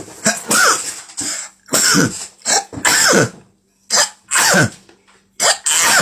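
A person sneezing about five times in quick succession, roughly one a second, each a short catch of breath followed by a loud burst with the voice falling in pitch.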